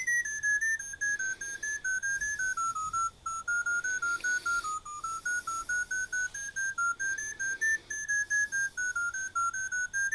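Rapid chain of short electronic beeps from a freetel Priori FT132A smartphone, about seven a second, each at a slightly different pitch so the tune wanders up and down in small steps, sinking lower through the middle and climbing back near the end. It is the random-walk program sounding a tone for each step it takes.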